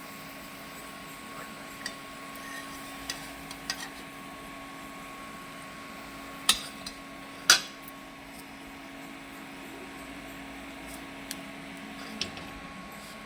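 Scattered clinks and knocks of metal kitchen utensils and dishes, two louder ones about a second apart near the middle, over a steady low hum.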